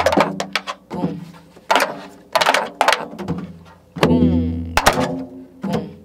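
Janggu (Korean hourglass drum) played in the jungjungmori rhythm of pansori, a run of sharp drum strokes in an uneven pattern. A woman's voice sings along briefly at the start and again about four seconds in.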